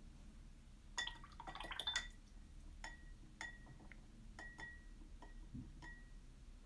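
Watercolour paintbrush being rinsed in a glass water jar: a quick rattle of clinks against the glass about a second in, then single light clinks, each with a short ring, roughly twice a second. Faint.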